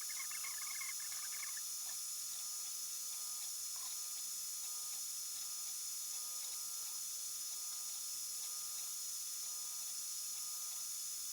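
3D printer running: its stepper motors give squeaky, chirping sounds for the first second or two, then fainter short sounds repeating over a steady high-pitched whine.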